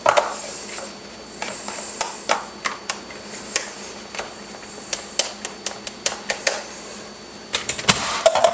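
Food being spooned and pressed down into plastic meal-prep containers: a run of small clicks and taps of utensil on plastic, with a short hissing rustle about two seconds in.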